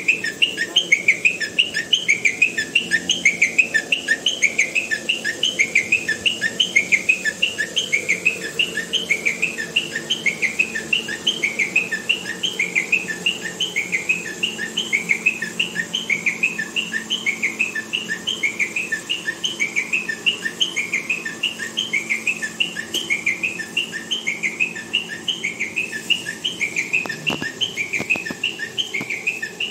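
High, rapid bird-like chirping, about three chirps a second, repeating evenly without a pause, over a faint low steady hum.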